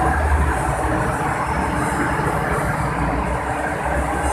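Passenger train coaches rolling past a station platform as the train pulls out: a steady, low rumble.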